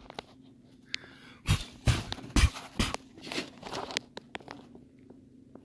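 Homemade vibratory screen separator running with a steady hum, with loose flakes rattling and crackling on its wire-mesh screen. The rattling grows loud and dense in the middle, then thins out.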